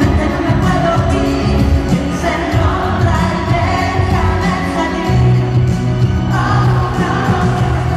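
Live pop-rock band playing a song with sung lead vocals and electric guitar, amplified over a concert PA, with a steady beat.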